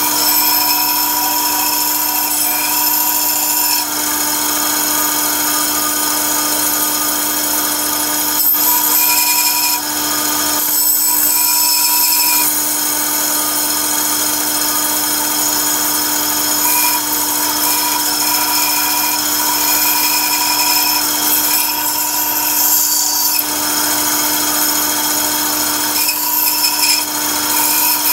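Bandsaw running with a steady motor hum while its blade cuts through a wooden block, the cutting noise swelling and easing as the block is fed and turned.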